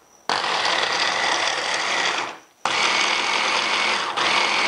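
Electric mini chopper's motor running as its blade chops chilies, garlic, ginger and coriander root in the bowl. It runs for about two seconds, stops briefly, then starts again and keeps running.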